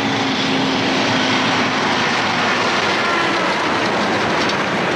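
Semi-trailer truck driving past on a highway: a steady rush of engine and tyre noise, with a low engine drone under it in the first half.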